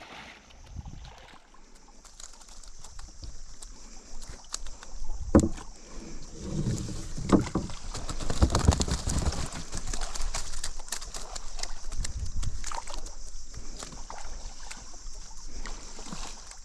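Water splashing and sloshing in a ditch, with irregular knocks and clattering handling noises, busiest in the middle seconds, over a steady high hiss.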